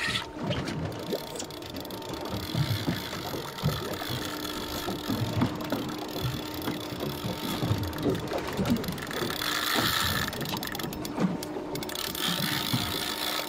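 Spinning reel working under the heavy load of a hooked fish: a steady mechanical whir of its gears, with short clicks through it.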